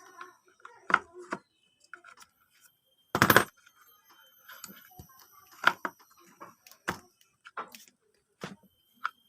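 Scattered sharp clicks and knocks, like handling or tapping, with one louder half-second burst about three seconds in.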